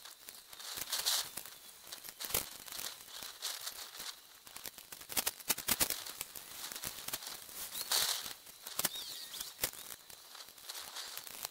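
Scattered clicks and knocks of a solar panel and metal mounting frame being handled and fitted, with some rustling. A few faint short bird chirps come in later on.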